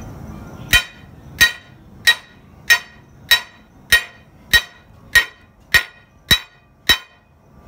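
Hammer blows on the end of a long steel driver bar: eleven evenly spaced strikes a little over half a second apart, each with a short metallic ring. The bar is driving a camshaft bearing into the cam bore of a 19-litre Cummins KTA 1150 diesel block.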